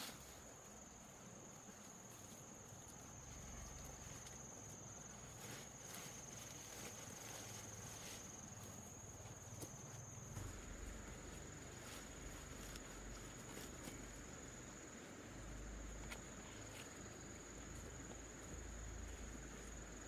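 A steady high-pitched insect trill that holds unbroken throughout, with faint scattered clicks and rustles and a low rumble underneath.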